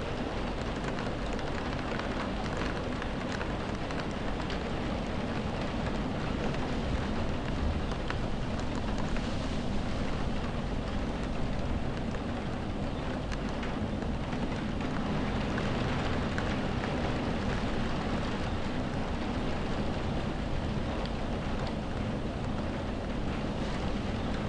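Heavy rain on window glass with wind, heard from indoors: a steady hiss with scattered drop ticks over a low rumble.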